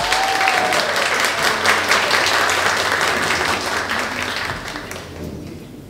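Audience applauding, the clapping thinning out and fading over the last second or so.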